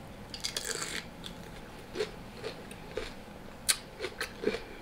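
Close-up eating sounds as vegetables are taken and chewed: small wet mouth sounds with scattered sharp utensil clicks, the loudest click a little after three and a half seconds in.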